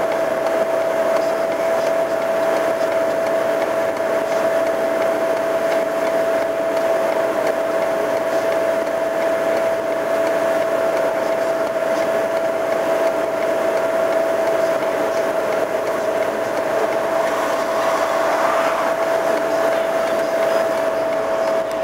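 Compact road sweepers working, with steady engine noise and a constant whine held at one pitch.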